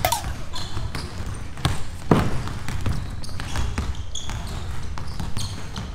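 Basketballs bouncing on a wooden gym floor: irregular thuds from dribbling and shots, the loudest about two seconds in, with a few short high sneaker squeaks.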